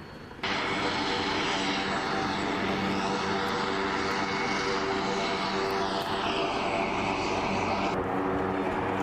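Aircraft engines running steadily, cutting in abruptly about half a second in, with steady engine tones under a loud rushing hiss that dips in pitch near the end.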